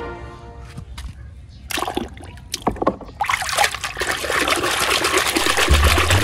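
Water splashing and sloshing in a plastic basin as a hand scrubs a small plastic toy vehicle. A few light clicks and splashes come first, then continuous busy splashing from about three seconds in.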